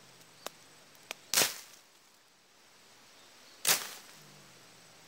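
A faint low growl from an unseen animal hidden in the undergrowth, which the filmer suspects is a leopard cat, broken by two sharp, loud bursts about two seconds apart.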